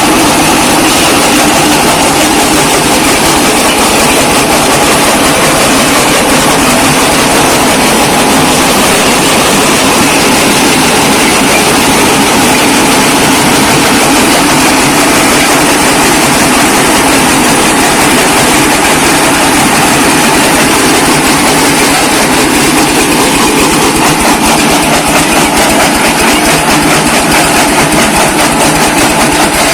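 Brick-breaking machine running steadily with a loud, dense clatter that never lets up.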